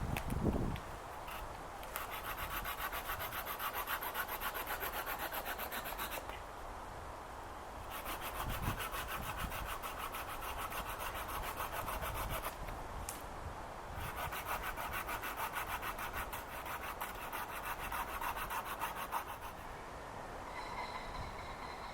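Hand saw cutting through wood in three bouts of quick, steady strokes, each lasting four to five seconds, with short pauses between.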